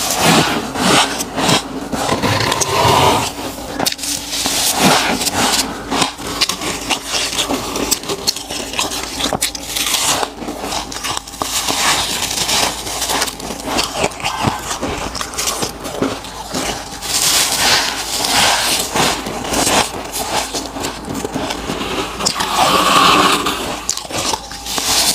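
Freezer frost and ice being scraped up and bitten, heard close-up as a continuous run of irregular crunching and scraping crackles.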